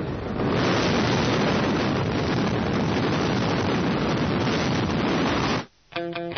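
Loud, steady rush of wind and aircraft noise at the open door of a skydiving jump plane, growing louder about half a second in and cutting off abruptly near the end. Electric guitar music starts just after the cut.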